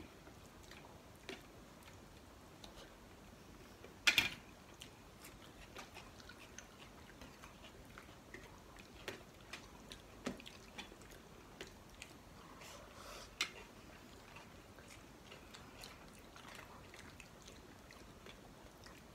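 Mukbang-style eating: faint chewing, with fingers and a spoon working rice and rajma curry on steel plates. Scattered small clicks run throughout, with a sharp louder click about four seconds in and another about thirteen seconds in.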